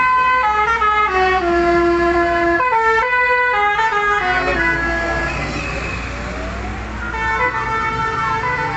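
Musical vehicle horns playing a tune of short stepped notes, followed by a siren wailing up and down, over the low running of passing vans' and cars' engines.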